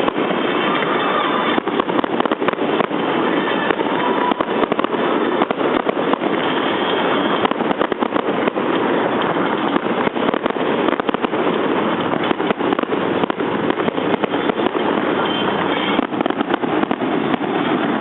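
Fireworks going off in rapid, continuous succession: a dense, unbroken barrage of bangs and crackles.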